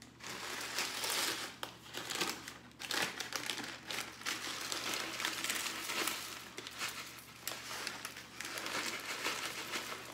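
Plastic bag of dry stuffing mix crinkling and rustling as it is handled and the stuffing is poured out into a pot, in irregular crackly bursts.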